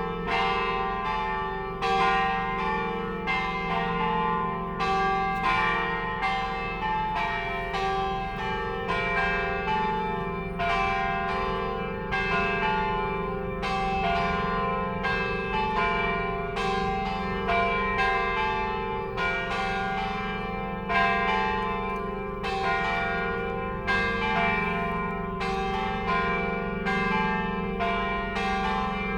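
Church bells ringing in a continuous peal, several bells of different pitch struck in turn. A fresh stroke comes about every half second to second, and each one rings on under the next.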